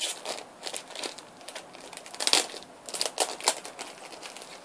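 Packaging being handled and worked open by hand: a run of irregular crinkles and crackles, the loudest about two and a third seconds in and again about three and a half seconds in.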